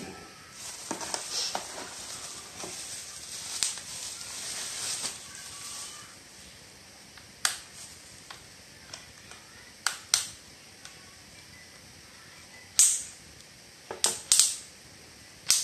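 Bubble wrap rustling and crinkling as a cordless drill is pulled out of its wrapping. This is followed by a string of sharp plastic clicks and knocks as the drill is handled over its hard plastic case.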